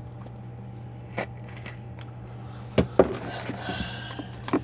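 A few sharp clicks and taps of small plastic craft containers being handled, with some rustling around three seconds in, over a low steady hum.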